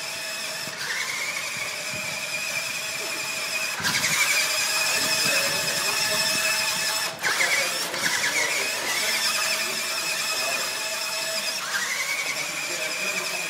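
Small RC monster truck's motor and drivetrain whining at a high pitch. The pitch sweeps up quickly each time the truck is throttled, about a second in, near four seconds, near seven seconds and near twelve seconds, then holds steady.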